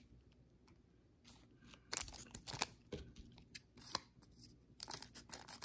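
Light clicks and rustles of trading cards and a foil card pack being handled, starting about two seconds in and getting busier near the end.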